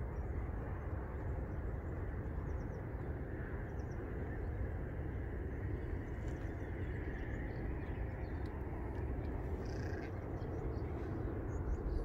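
Steady low rumble of wind on the microphone outdoors, with a few faint, short high chirps from small birds scattered through it.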